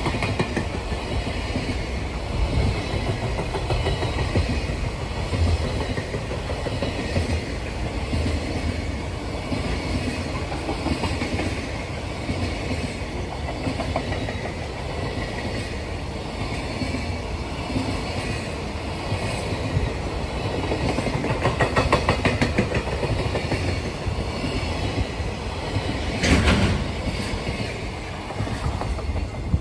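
Container freight train rolling past close by: a steady rumble of flatcar wheels on the rails with clickety-clack over the rail joints, growing denser about two-thirds through and with a loud burst of clatter a few seconds before the end.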